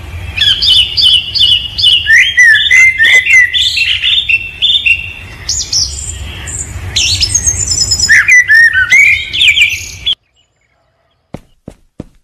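Small birds chirping and trilling in a dense, overlapping chorus of quick calls, which stops abruptly about ten seconds in. After a second of silence, sharp clicks start near the end, evenly spaced at about three a second.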